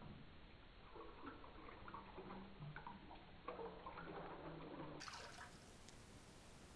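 Mineral oil pouring from a glass measuring cup into a saucepan: a faint, uneven trickle and splash of liquid, dying down to a few faint ticks about five seconds in.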